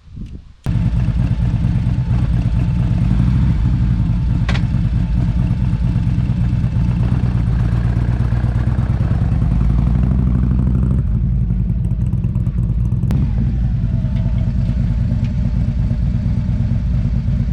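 Harley-Davidson V-twin engine running steadily at idle, loud and close, starting abruptly just under a second in and cutting off abruptly at the end. A faint click sounds about four seconds in.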